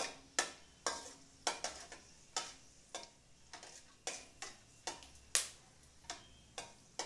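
Steel spoon scraping and knocking against a stainless steel kadai while stirring dried red chillies frying in oil, in sharp strokes about two a second, one stroke near the middle louder than the rest.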